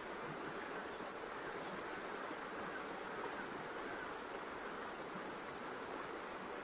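Steady rushing outdoor noise with no distinct events in it.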